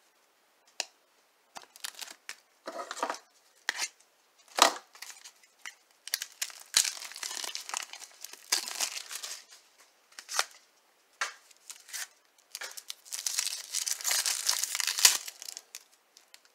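Clear plastic shrink-wrap of a trading-card pack crinkling and tearing as it is handled and opened. Scattered sharp clicks and taps come first, then two longer runs of dense crinkling, about six and thirteen seconds in.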